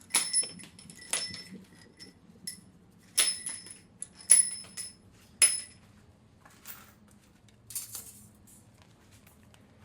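Steel hand tools and bolts clinking: a string of sharp metal-on-metal clinks, each with a short bright ring, in the first six seconds, then a couple of softer scrapes.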